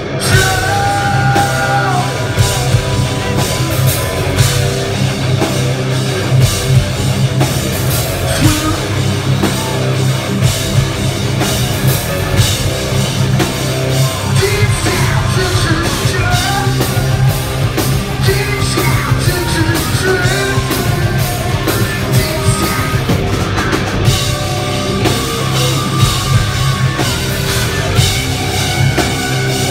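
Heavy rock band playing live at full volume: distorted electric guitars, bass and a drum kit, with a singer's lead vocals over them.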